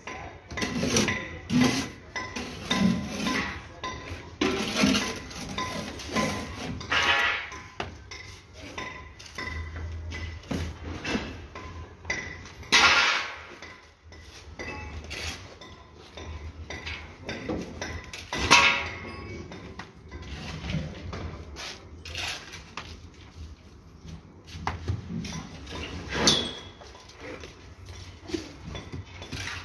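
Bricklaying work: bricks and a steel trowel knocking, scraping and clinking as bricks are set into mortar, in irregular strokes with two louder knocks about 13 and 18 seconds in.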